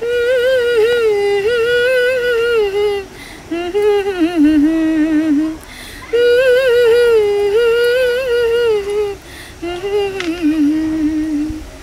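A woman singing a melody solo and unaccompanied, in four phrases. The second and fourth phrases fall lower, so the tune repeats itself.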